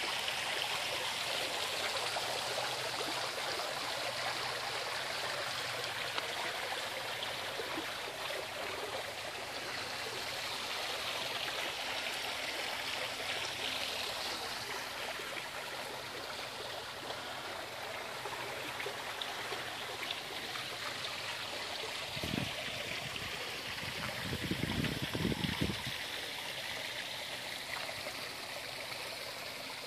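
A steady rushing hiss, like running water. Two short low rumbles come about three quarters of the way through.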